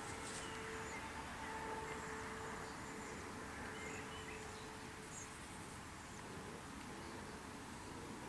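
Quiet outdoor background: a steady faint hum that fades out a few seconds in, with a few faint, short bird chirps.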